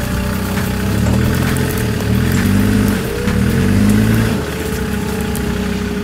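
Land Rover Discovery 2 engine revving in repeated swells as the 4x4 crawls up a rock step, the pitch rising and falling four or five times. A steady whine runs underneath.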